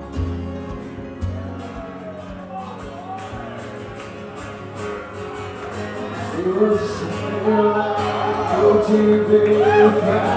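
Music: a soft instrumental passage with a steady beat, then a singing voice that comes in and grows louder about six seconds in.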